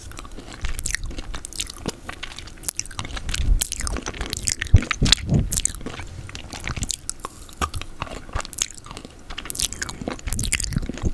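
ASMR mouth sounds of eating peanut butter: irregular clicks and smacks of the tongue and lips, coming in quick clusters.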